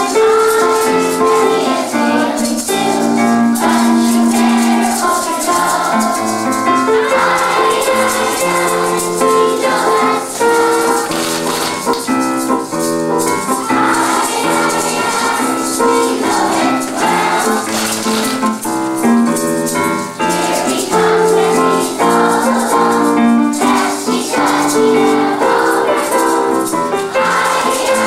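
A group of young children singing to electronic keyboard accompaniment, with hand rattles shaken in rhythm throughout.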